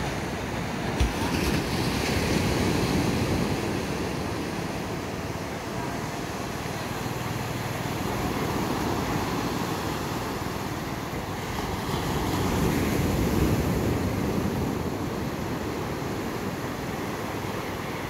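Sea surf breaking on a sandy beach, a continuous rush of waves washing up the shore that swells louder twice, a couple of seconds in and again near the middle. A short knock about a second in.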